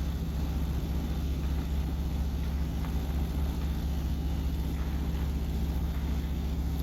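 Steady low engine hum of motor vehicles, unchanging throughout.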